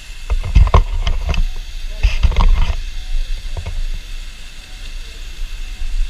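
Glacier-fed waterfall rushing close by as a steady loud hiss. Heavy low rumbling bumps on the microphone come in two clusters, about half a second in and about two seconds in, with a smaller one near the middle.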